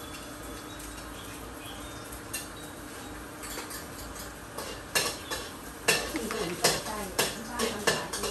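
Metal spatula clanking and scraping against a wok while stir-frying, starting about halfway through with sharp strikes several times a second, over a steady low hiss.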